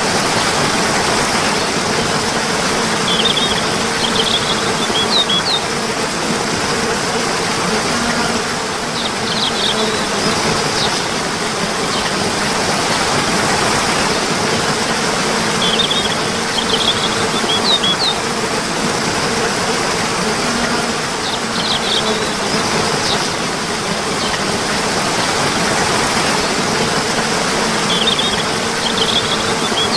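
Steady rush of flowing water, with short clusters of high bird chirps that come back about every six seconds.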